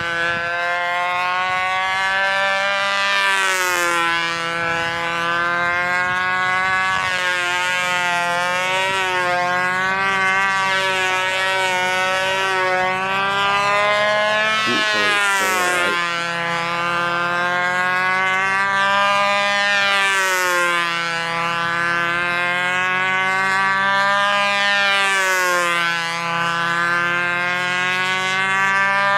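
Two-stroke glow engine of a control-line model plane, a Magnum .40 FSR, running steadily in flight. Its pitch rises and falls about every five seconds as the plane circles the pilot on its lines.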